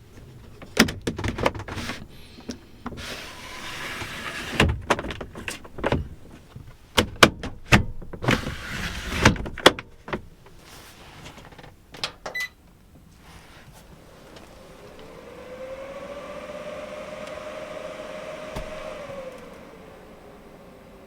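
A run of sharp clicks and knocks, like things being handled and set down, then a small electric motor whirring: it winds up, holds steady for a few seconds, and winds down.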